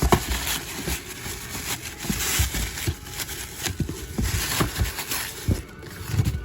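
Packaged die-cast toy cars and their cardboard case being handled: irregular knocks, clatter and rustling as the cars are picked through one by one, with the loudest knock right at the start.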